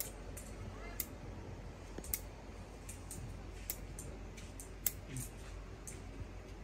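Bonsai pruning scissors snipping fine twigs, an irregular run of short, sharp snips about one or two a second.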